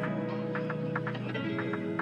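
Background music: short picked notes over held chords, the chord changing about two-thirds of the way through.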